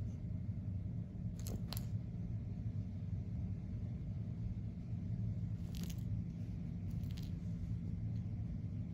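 Orange tabby cat purring, a steady low flutter, with a few soft clicks of rustling fur or blanket.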